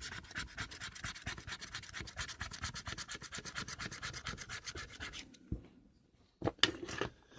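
Scratching off the coating of a lottery scratch-off ticket: rapid, even scraping strokes, about ten a second, that stop about five seconds in, followed by a few light taps near the end.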